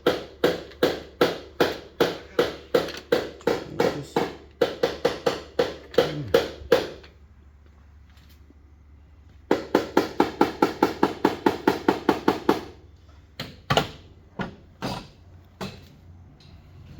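Paintless dent repair tap-down: a hammer and knockdown tool tapping a car's sheet-metal panel, about three ringing taps a second. The taps stop for a couple of seconds about seven seconds in, start again in a second run, and end in a few slower, louder taps.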